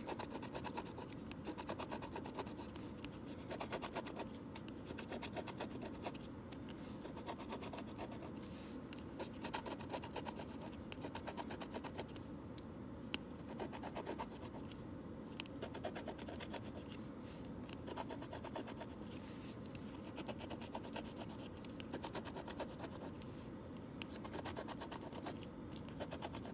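A coin scratching the coating off a scratch-off lottery ticket in quick repeated strokes, with brief pauses between spots.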